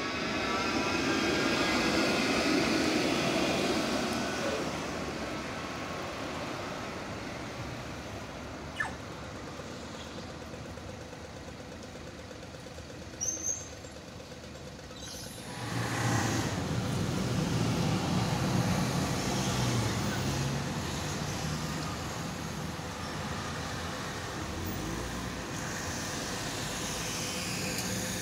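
A Melbourne C-class tram passes close, its electric drive whining in gliding tones over a rumble of wheels on rail, then fades. About halfway through, another loud rumbling vehicle pass with street traffic takes over, most likely the A-class tram moving off.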